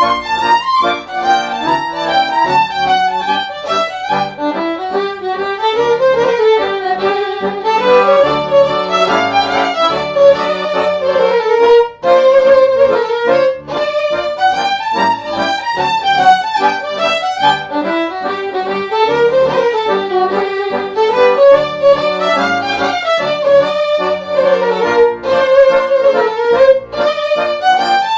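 A Hungarian folk tune played on a bowed string instrument with a fiddle-like tone: a winding melody over a steady low drone, with many short sharp accents.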